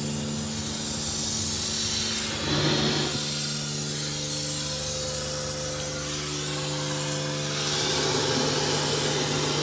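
Water spraying steadily onto a car door during a water leak test, a continuous hiss that swells briefly twice, over a steady low hum.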